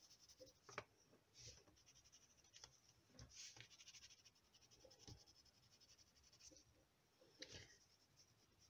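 Faint scratching of a colored pencil shading over dried watercolor paint on paper, in short, irregular strokes.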